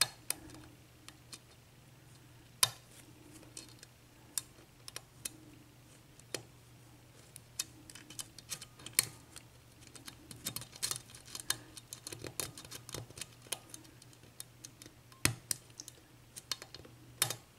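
A lock pick and tension wrench working the pins of a Dorma 7-pin mortise cylinder during single-pin picking: light, irregular metallic clicks and ticks as the serrated pins are lifted and set, coming thicker about two-thirds of the way through.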